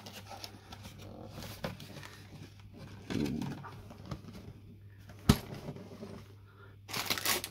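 A cardboard LEGO set box and the plastic parts bags inside it being handled: rustling and crinkling, a short scuffling burst about three seconds in, a single sharp tap a little past five seconds, and a burst of crinkling near the end.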